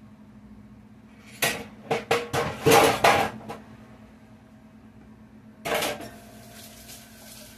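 Dishes being handled and set down on a kitchen counter: a quick run of clattering knocks and scrapes over about two seconds, then one more knock a few seconds later.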